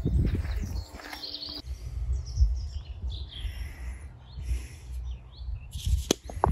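Small songbirds chirping and singing in short high phrases over a low wind rumble on the microphone, with a couple of sharp clicks near the end.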